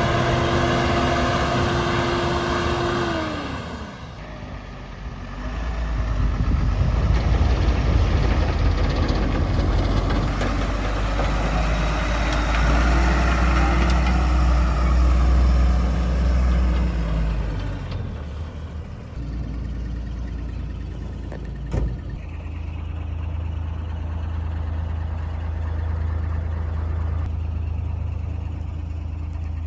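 Heavy diesel machinery engines running under load: a steady engine note that falls away about three seconds in, then a deep rumble that swells and eases, and later a steadier low running note with one sharp knock about three quarters of the way through.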